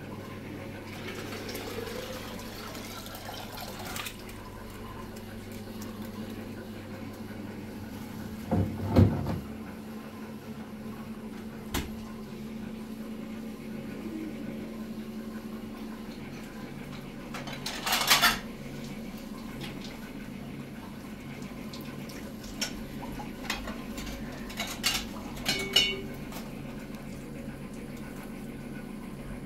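Hard objects clanking and clinking as they are handled: a loud clank about nine seconds in, a clatter around eighteen seconds, and a few light clicks later, over a steady low hum.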